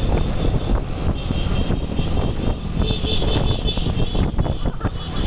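Steady vehicle noise: engine and road rumble, heaviest in the low end, with no distinct horn call standing out.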